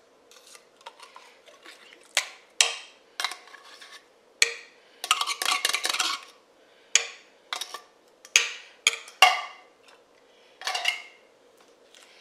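A metal utensil scraping and clinking against a can and a dish, most likely condensed cream of mushroom soup being opened and spooned out. It comes as separate sharp scrapes, with a dense run of scraping about five seconds in.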